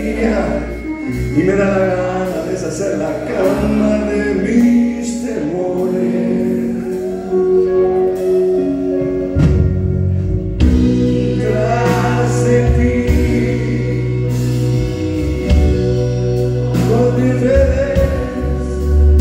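Blues-rock band playing live: a man singing over electric guitar, keyboard and bass. The low end gets fuller about halfway through.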